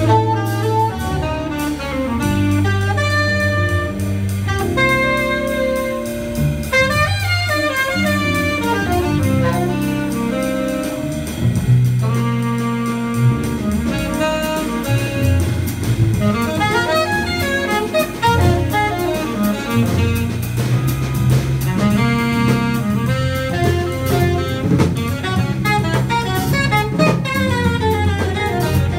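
Live jazz: a saxophone plays a running melodic line over a small band with drum kit and a stepping bass line underneath.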